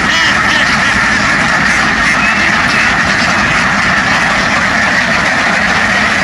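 A large flock of domestic ducks quacking all at once, a steady, dense din of overlapping calls.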